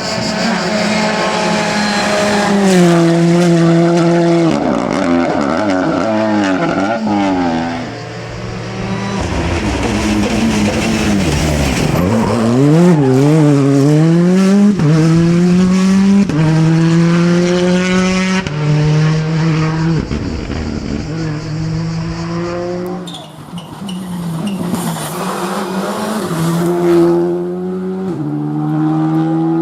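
Rally car engines driven hard on a stage. The revs climb and step down through repeated gear changes, with a burst of quick up-and-down revving about halfway through.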